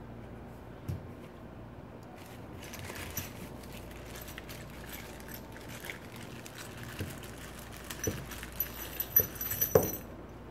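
Small plastic parts bags crinkling and rustling as hands rummage through them, with small metal kit parts clicking. A few sharper knocks come in the last couple of seconds, the loudest just before the end.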